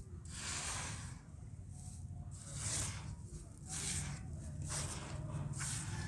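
Hands sweeping and pressing dry, powdery red dirt against the sides of a moulded mound: a series of soft gritty swishes, about one a second.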